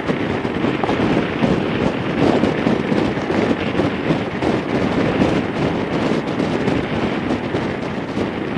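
Wind buffeting the microphone of a Harley-Davidson Fat Boy cruising at highway speed, over a steady rush of engine and road noise.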